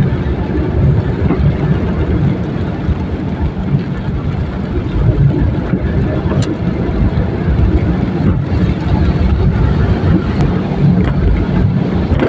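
Steady low rumble of a car driving on a wet highway, heard from inside the cabin: road, tyre and engine noise.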